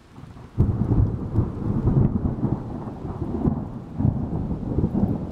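Thunder: a low rumble that breaks in suddenly about half a second in, then rolls on deep and uneven, swelling and easing.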